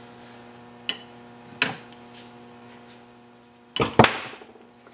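A couple of light knocks, then about four seconds in a short clatter as a small metal engineer's square is set down on a wooden workbench.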